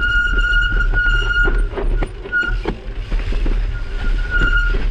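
Mountain bike rolling on a dirt trail, its freehub giving a high, steady buzzing whine while it coasts, cutting out and back in twice, over a constant low rumble of wind and tyres.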